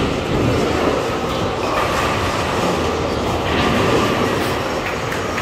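Steady rumble of bowling balls rolling down the lanes of a busy bowling alley, with the clatter of the alley's ball-return machinery.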